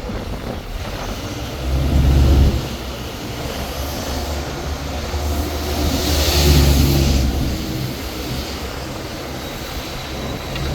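Tour bus engine running as the bus drives, heard from aboard. The engine note swells twice, briefly about two seconds in and again around six to seven seconds in, the second time with a rush of hissing noise.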